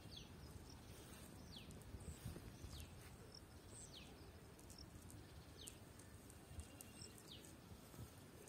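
Faint rural outdoor ambience: a bird repeats a short, high, falling call every second or two over a low background rumble.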